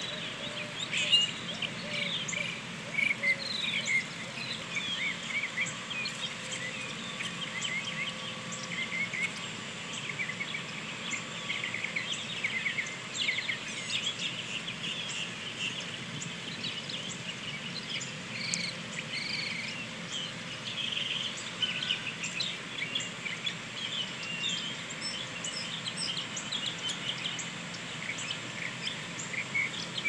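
Many small birds chirping and twittering at once, a dense, unbroken chorus of short high calls over a steady outdoor hiss.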